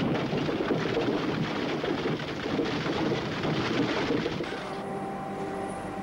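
A dense, pattering rush of noise that cuts off about four and a half seconds in, leaving a steady machinery hum with a few fixed tones.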